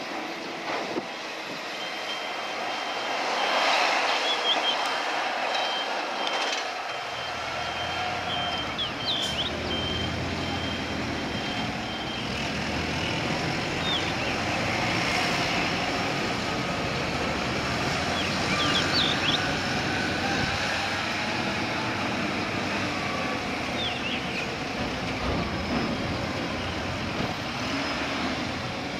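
Dockside cargo-handling machinery during crane loading: a heavy diesel engine rumble comes in about seven seconds in and runs on, with a high warning tone sounding through roughly the first twelve seconds and a few short high squeaks.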